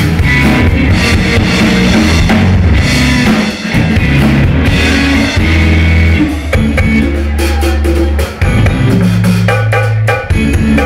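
Live rock band playing: electric guitar, bass guitar and drum kit, loud. About six seconds in, the full wash of sound thins out into separate drum hits over sustained bass notes.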